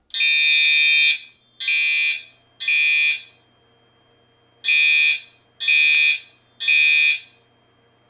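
Fire alarm horn sounding in a temporal-3 evacuation pattern: three blasts, a pause, then three more, set off by a pulled Killark pull station.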